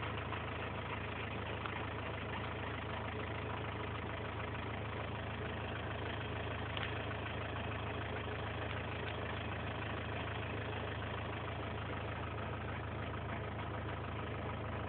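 Steady low machine hum, like an engine idling, unchanging throughout.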